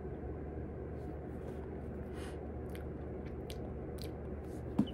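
Quiet room tone with a steady low hum and a few faint, scattered clicks, and one short soft sound just before the end.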